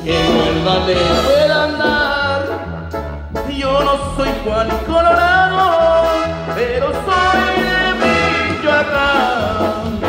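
A live regional Mexican band plays a melody over a steady, rhythmic bass line.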